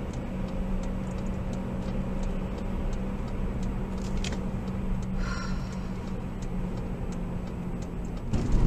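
A car driving, heard from inside the cabin: a steady low hum of engine and road noise with light, irregular ticking clicks over it.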